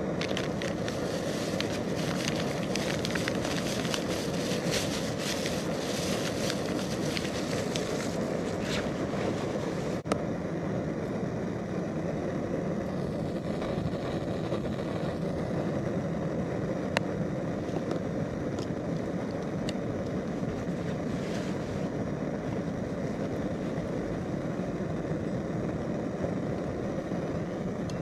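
Primus Omnifuel camping stove burner running steadily under a coffee kettle. For the first nine seconds or so a packet crinkles as it is handled. There is a sharp click about ten seconds in and a few light ticks after it.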